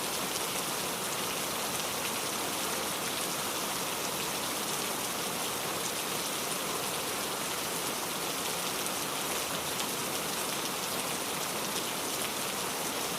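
Steady rain falling on a surface, an even hiss with many fine drop ticks that neither swells nor breaks off.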